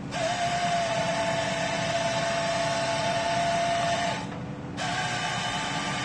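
Hydraulic saw on a crane's grapple-saw head running: a steady high whine over the low drone of the truck's engine. The saw starts abruptly, stops about four seconds in, and starts again a little before five seconds.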